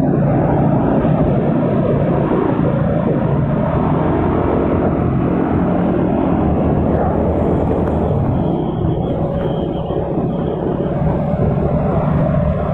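Steady rumble of wind and road noise on the microphone of a moving motor scooter, with the scooter's engine running underneath.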